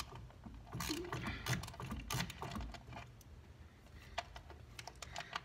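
Light, irregular clicks and taps of a 10 mm socket wrench being fitted to and worked on an ignition coil's hold-down bolt in a car engine bay.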